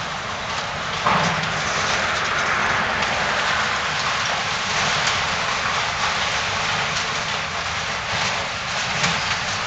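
Demolition excavator working in building rubble: a steady rattling, crunching clatter of debris, with a few sharp knocks, one about a second in and one near the end.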